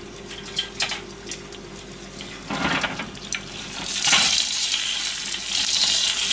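A breaded piece of food sizzling in hot oil in a pan, with a few light clicks of chopsticks against it. The sizzle swells to a loud, steady hiss about four seconds in as the piece is turned over.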